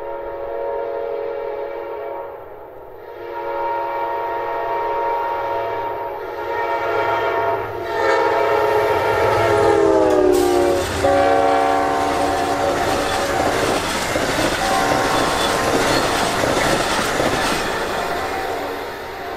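Locomotive air horn sounding a series of long blasts as a train approaches. The horn's pitch drops as it passes about ten seconds in, and the noise of the train rushing by on the rails then takes over.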